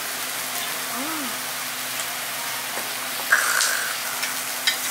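Food sizzling in a hot pan with a steady, even hiss. A couple of sharp utensil clicks come about three and a half seconds in and near the end.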